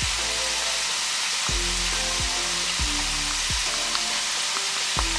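Catfish nuggets frying in peanut oil in a deep fryer, a steady sizzle, under background music with a regular beat.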